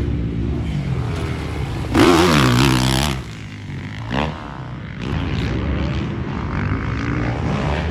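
Dirt bike engines revving as riders work the throttle over jumps, the pitch rising and falling. The loudest burst comes about two seconds in.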